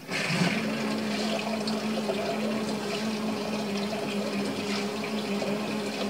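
Water pouring and splashing into the drum of a Panasonic fully automatic top-loading washing machine as it fills over curtains in laundry nets, with a steady machine hum underneath.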